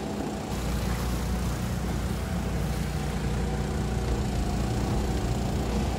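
Motorboat engine running steadily under way, a low even drone that gets slightly louder about half a second in.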